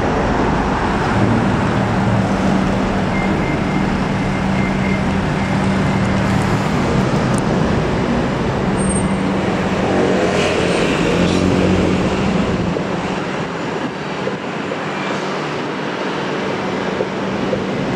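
Delivery van's engine running as it pulls out of the depot and drives off, over steady street traffic noise; the low hum eases off a little after about thirteen seconds.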